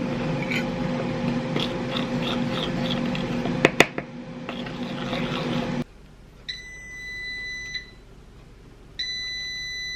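Microwave oven running with a steady hum that cuts off about six seconds in, then two long, high-pitched beeps a couple of seconds apart signalling the end of the heating cycle.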